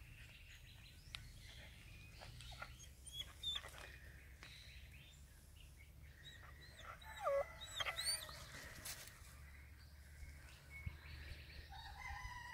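Several short, high animal calls that slide in pitch, loudest about seven to eight seconds in, over a low steady background. A longer call with several pitches together starts near the end.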